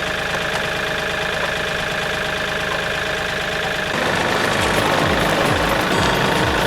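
Backhoe tractor's diesel engine running steadily at idle, then getting louder and rougher about four seconds in as it is throttled up.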